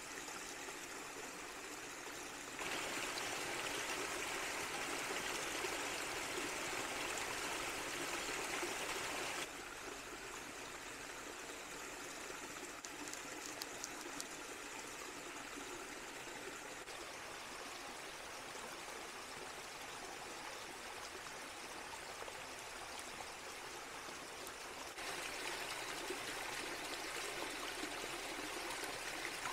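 Small forest stream spilling over rocks in a little waterfall: a steady rushing and babbling of water, which gets louder about a quarter of the way in, drops back a few seconds later and rises again near the end.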